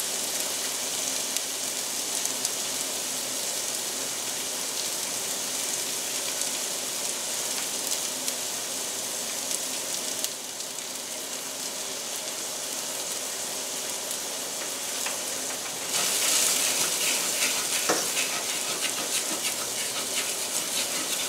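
Chopped mushrooms, garlic and shallots sizzling steadily in a stainless steel skillet. From about sixteen seconds a wooden spoon stirs through the pan, which makes the sizzle louder and adds scraping.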